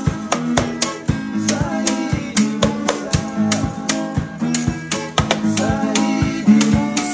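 Acoustic guitar strumming over a steady beat on hide-headed hand drums, with a man singing in places.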